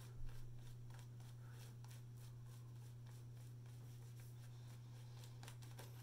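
Shaving brush swishing lather over the face in repeated strokes, a faint scratching of bristles on skin. There is a soft bump just after the start and a steady low hum underneath.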